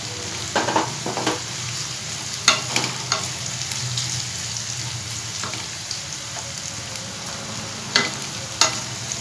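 Chopped onion, garlic and green chillies sizzling in hot oil in a kadai, frying until the onion turns pink. A wooden spatula stirs them, scraping and knocking against the pan several times, with a cluster of strokes in the first three seconds and two more near the end.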